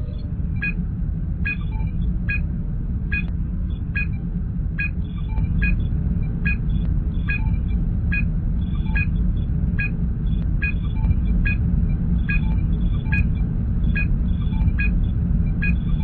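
Star Trek starship ambience sound effect: a steady low engine rumble, with short electronic computer chirps repeating a little faster than once a second.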